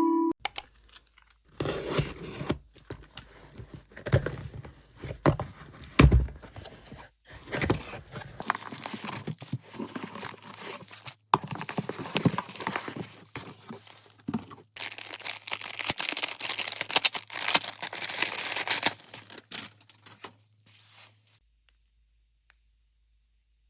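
Packaging being torn open and handled: tearing and crinkling of plastic and paper wrapping with sharp clicks and rustles. It stops about two seconds before the end.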